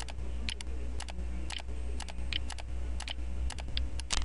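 Irregular keystroke clicks, roughly three or four a second: the keyboard typing sound that Camtasia Recorder adds to a recording, being demonstrated as one of the two sounds to be replaced.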